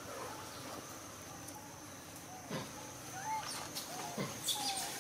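Macaques giving short squeaky chirps and gliding calls, a few scattered through the clip and more frequent in the second half, over a thin steady high-pitched tone.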